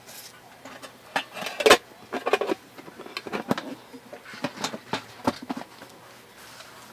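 An irregular clatter of knocks, clicks and rustles, as things are handled, loudest about a second and a half in and dying away near the end.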